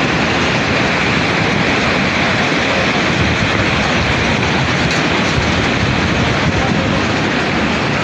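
Landslide rockfall: rock and debris pouring down a steep slope in a loud, steady rushing rumble with no breaks.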